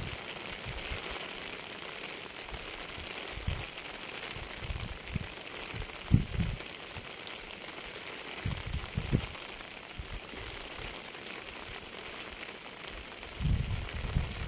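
Steady rain falling, an even hiss, broken by a few short low thuds, the strongest about six seconds in, with small clusters around nine seconds and near the end.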